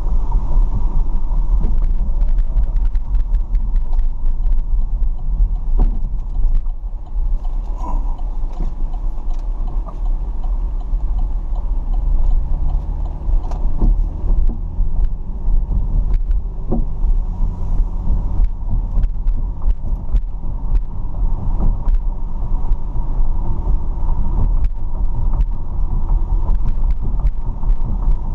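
A car driving, with a steady low rumble of engine and road noise and a few faint clicks.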